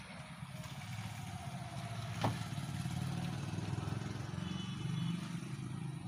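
An engine running steadily with a low, even rumble that grows a little louder, and one sharp click about two seconds in.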